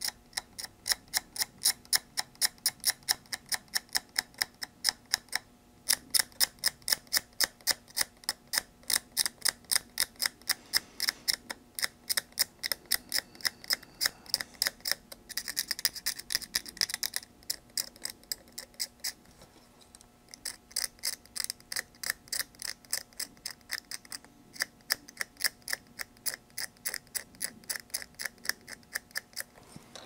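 Rapid, even ticking, about three sharp ticks a second, pausing briefly twice.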